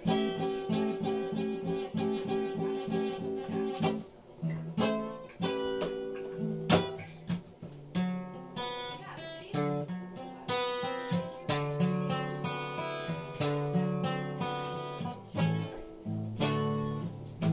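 Acoustic guitar being played: a quickly repeated picked figure for the first few seconds, then a run of plucked and strummed chords and single notes.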